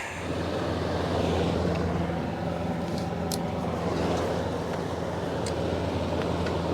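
1957 Berns Air King electric fan running: a steady motor hum under the rush of air from its blades, coming up in level right at the start and then holding even.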